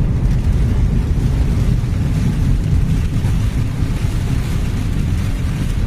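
Car driving through a flooded road in heavy rain: a steady low rumble of tyres in standing water, with rain and wind noise.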